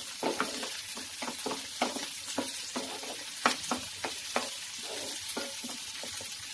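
Chopped garlic, green chillies and sliced onion sizzling in hot oil in a pan, with a steady hiss and many short irregular clicks as a spatula stirs and scrapes against the pan.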